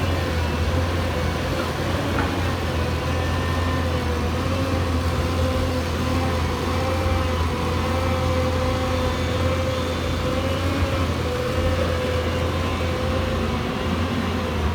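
Hyundai Robex 220-9SH excavator's diesel engine running steadily: a deep hum with a steady whine over it.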